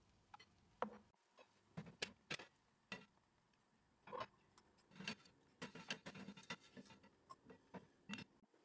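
Faint, irregular ticks and small pops from chocolate crepe batter cooking in a hot non-stick frying pan on a gas hob, with a short cluster of them a little past the middle.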